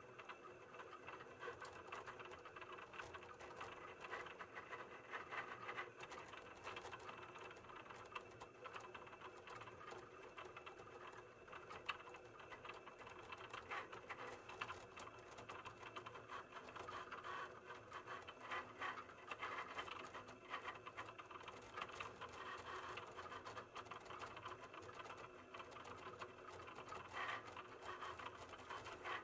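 Cricut cutting machine cutting out a print-then-cut sheet: faint motor whirring and fast ticking that shift continually as the blade carriage and mat move.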